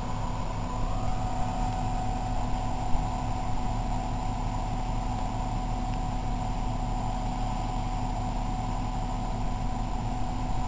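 Off-road trucks' engines idling steadily, with one short click about three seconds in.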